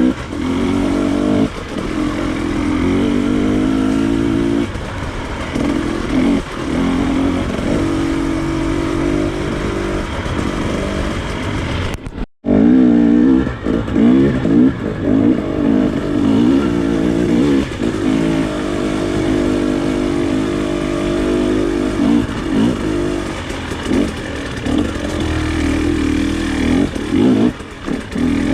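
Off-road trail motorcycle engine running under way, the revs rising and falling again and again as the throttle is opened and closed. The sound cuts out suddenly for a moment about twelve seconds in, then resumes.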